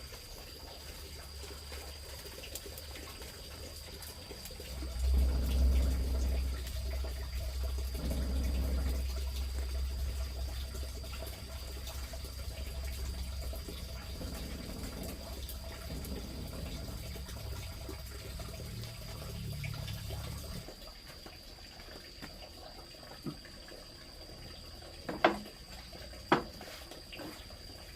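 Water running steadily, starting about five seconds in and cutting off suddenly about twenty seconds in. A few sharp knocks follow near the end.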